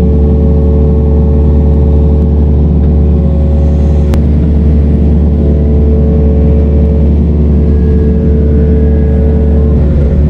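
Yanmar ViO50 mini excavator's diesel engine running steadily under digging load with a steady hydraulic whine, heard from inside the cab. A single sharp click comes about four seconds in.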